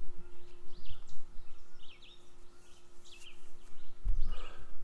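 Small birds chirping in short, quick, downward-sliding calls, repeated every second or so. Low thumps come and go beneath them, the strongest about four seconds in.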